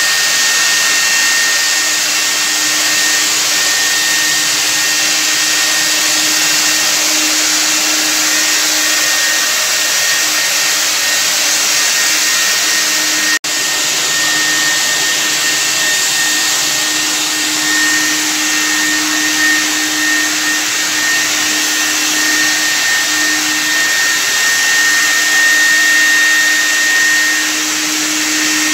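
Handheld electric disinfectant fogger running steadily: a blower motor's whine over a loud hiss of air and spray mist. It cuts out for an instant about halfway through.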